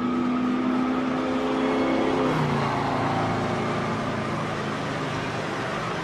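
Racing car engine holding a steady high note, then dropping sharply in pitch about two seconds in and running on at the lower note.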